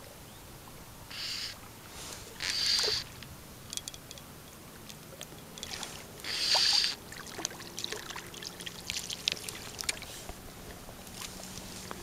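Fly line swishing through the air as a fly rod is false-cast: three short whooshes, the last the loudest and longest, followed by a run of light clicks.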